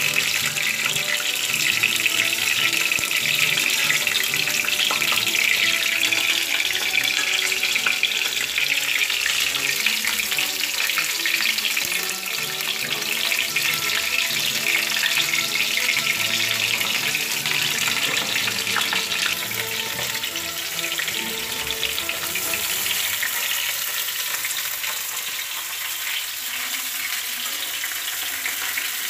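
Whole tomatoes sizzling in a hot aluminium kadhai, turned now and then with a metal spatula, as a steady frying hiss. Music plays in the background.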